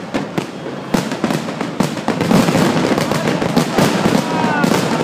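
Fireworks going off: a rapid run of bangs and crackling bursts that grows louder and denser about two seconds in.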